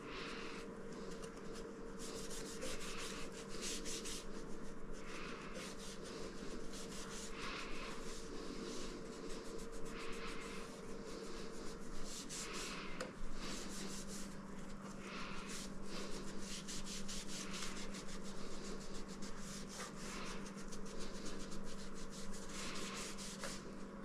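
A small cloth rubbed against the glass panels of a stained-glass ceiling light shade, scrubbing off kitchen grime in repeated, uneven strokes.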